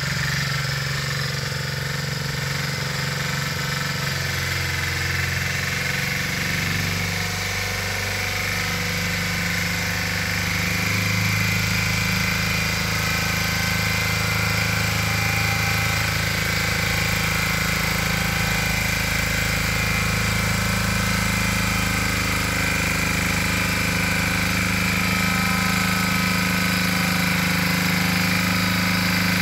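Lombardini 8 hp single-cylinder engine of a Valpadana walk-behind cultivator running steadily as it tills soil, its pitch shifting about seven and eleven seconds in.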